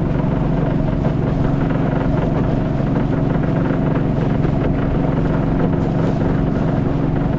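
Motorboat engine running at a steady pace, a continuous even drone with no change in speed.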